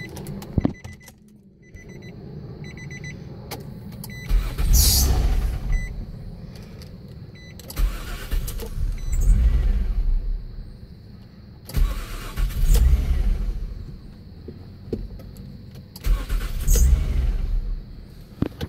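A 2002 Nissan Maxima's 3.5-litre V6 being cranked by the starter four times, each attempt lasting about two seconds. It never catches: a crank-no-start, even on a new battery.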